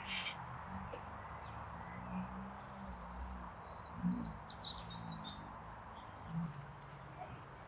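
Small birds chirping faintly, a short run of high chirps about halfway through, over a steady low outdoor hum.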